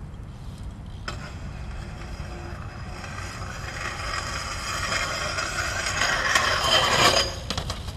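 BMX bike's pegs grinding down a long stone stair ledge: a metallic scrape with a thin high ring starts suddenly about a second in, grows louder, and cuts off at about seven seconds. A few quick knocks follow as the bike comes off the ledge.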